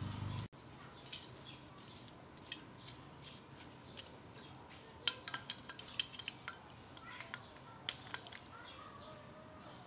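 Irregular light metal clicks and clinks of steel locking pliers and a can-tap fitting being handled and set onto a can of R134a refrigerant. A low steady hum cuts off abruptly about half a second in.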